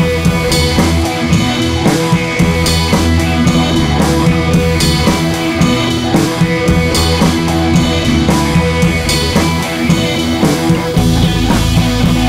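Rock music with drums and guitar at a steady beat, the bass line changing about eleven seconds in.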